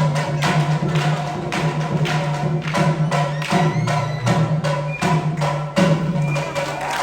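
Percussion music: sharp wooden clacks and drum beats in a steady rhythm of about two strikes a second, over a sustained low tone.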